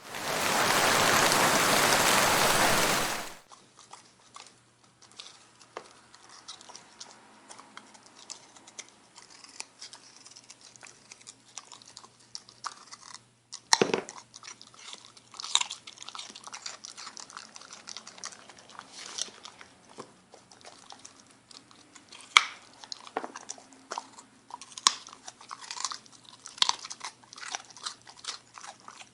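A loud burst of steady hiss for about the first three seconds, then a dog chewing and crunching food, with irregular sharp crunches and clicks.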